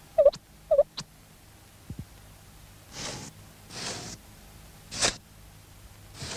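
Cartoon sound effects: two short squeaks about half a second apart and a click, then three short hissy swishes about a second apart, the last the sharpest.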